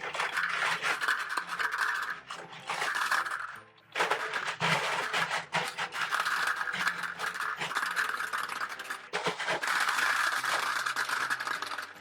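Gumballs pouring through a funnel into a toy gumball machine, a continuous clattering rattle of many small hard balls, with a brief lull about four seconds in.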